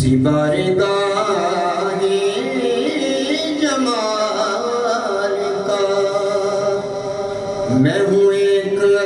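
A man's voice singing an Urdu naat (devotional recitation) unaccompanied into a microphone, in long phrases with gliding, ornamented notes over a steady held drone. A new phrase begins near the end.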